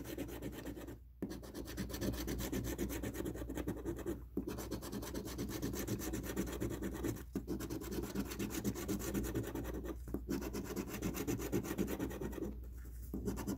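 Coin scraping the coating off a scratch-off lottery ticket: steady, rapid rubbing, broken by brief pauses about every three seconds.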